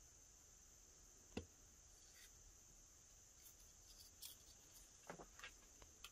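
Near silence with faint handling noises: a soft knock about a second in, then light clicks and crinkles of a thin plastic wrapper as a small foam squishy toy is turned over in the hand, over a faint steady hiss.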